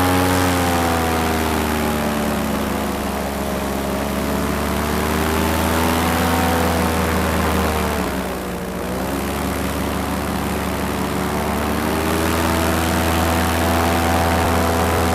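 Paramotor engine and propeller running under power in flight. Its pitch sags slowly, dips sharply about eight seconds in, then climbs back up as the throttle is opened again.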